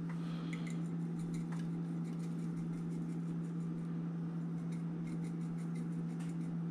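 Spice shaker shaken over seasoned fish in a glass baking dish, a run of small irregular ticks from the granules and shaker, over a steady low hum.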